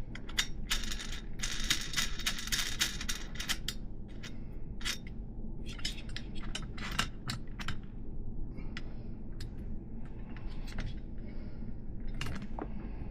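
Small metal parts clicking and clinking as BMX axle hardware is handled: a dense run of clicks between one and three seconds in, then scattered single clicks.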